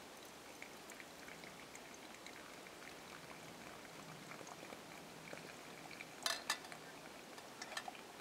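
Hot water poured in a thin stream from a small camping pot into a pour-over coffee dripper, a faint steady trickle, with a couple of sharp metal clinks about six seconds in.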